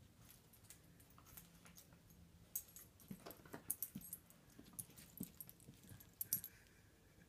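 Dog rummaging in a pile of clothes: faint rustling of fabric with scattered light clicks and jingles, busiest in the second half.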